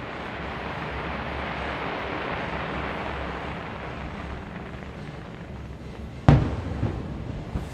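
Fireworks display: an even hiss for the first several seconds, then a sharp, loud shell burst about six seconds in, followed by two smaller bangs.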